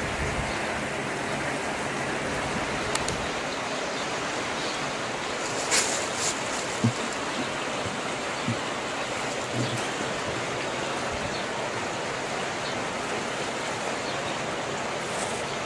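Steady rush of flowing floodwater, with a few short knocks about halfway through.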